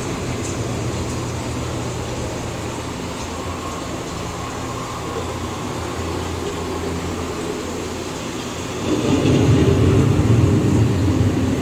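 Steady low rumble of a boat dark ride's background audio and machinery, growing louder about nine seconds in.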